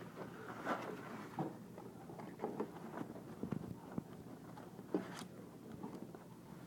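Cardboard display panels being folded and pressed into place by hand: scattered rustles and light knocks, with one sharper knock about five seconds in.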